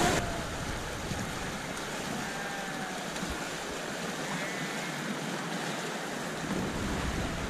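River water running over a shallow gravel riffle: a steady rushing hiss of moving water heard from a kayak on the river.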